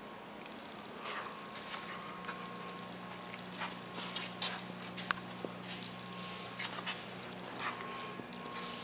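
A steady low hum, stronger from about two and a half seconds in, with irregular short scuffs and clicks of footsteps and handling on a concrete shop floor.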